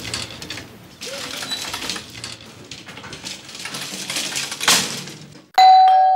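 Doorbell chime ringing out suddenly near the end, a steady clear tone and the loudest sound here. Before it come soft, scattered clicks and rustling.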